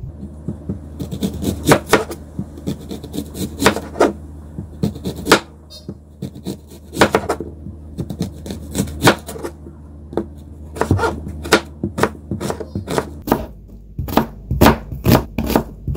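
Kitchen knife slicing a white onion into rings on a cutting board: irregular knocks of the blade through the onion onto the board, coming faster near the end.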